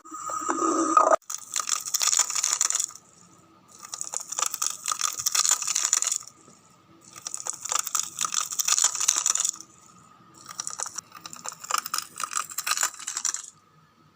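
Four bursts of dense, high crackling, each lasting about two seconds, separated by short quiet gaps.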